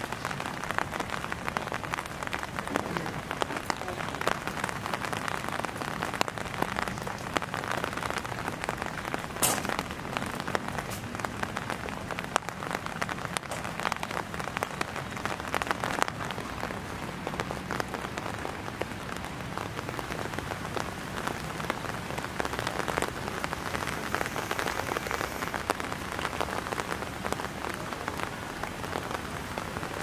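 Steady rain falling and pattering on surfaces, a dense even hiss of countless small drops with a few sharper ticks.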